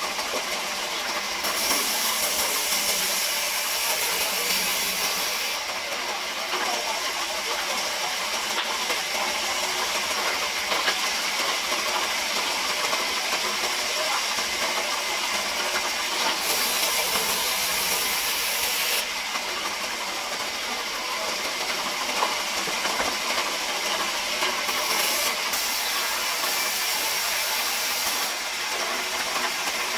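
Large wheel band saw running and ripping timber, a steady hiss of the blade cutting through the wood; the hiss changes tone a few times as the cut goes on.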